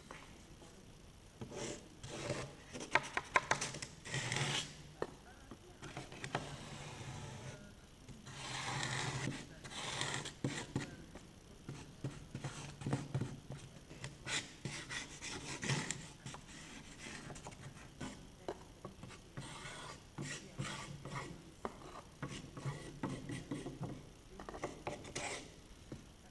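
A scrap-wood stick scraping and rubbing through epoxy resin, working it in uneven strokes, with a few light clicks.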